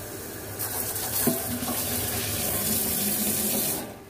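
Tap water running into a plastic bottle over a stainless steel sink while it is rinsed with fresh water; the flow starts about half a second in and is shut off sharply just before the end. A single light knock about a second in.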